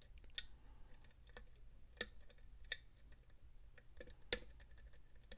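Metal lock pick clicking against the pins inside an ASSA Max+ restricted lock cylinder: scattered sharp, irregular clicks, the loudest about four seconds in.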